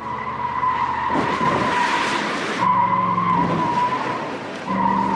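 A Corvette's tyres squealing in a long, wavering screech as the car spins out on pavement, with the engine revving beneath. A harsher skidding hiss swells over the first half.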